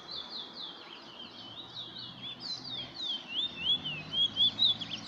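Caged bullfinch (a Trinidad finch kept as a singing bird) singing a fast, continuous string of rising-and-falling chirps, which gets busier and louder about halfway through. It is singing on cue during song training, where each completed song is counted.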